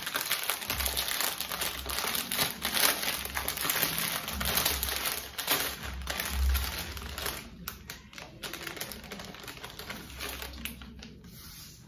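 Clear plastic packaging around a rolled diamond painting kit crinkling and crackling as it is handled. The crinkling is dense at first, then thins out and gets quieter over the last few seconds.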